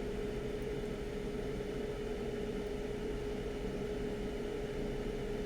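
A steady hum: one constant mid-pitched tone over an even hiss, unchanging throughout.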